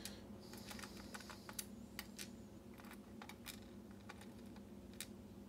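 Faint, irregular light clicks and taps of small metal lock parts being handled: pins and springs from a disassembled pin-tumbler lock core. A faint steady hum runs underneath.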